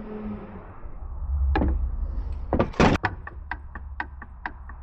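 Hands-on work on an opened rear-axle differential. A low hum, then a single loud clunk a little more than halfway through, followed by a steady run of light clicks, about four a second.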